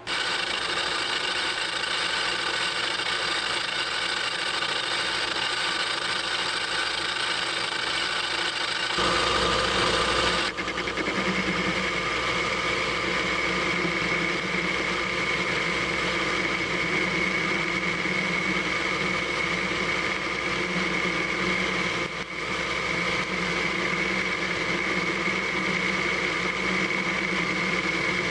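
Metal lathe running steadily with a constant hum and whine while drilling and boring a workpiece. The tone shifts abruptly about nine seconds in and again a second and a half later.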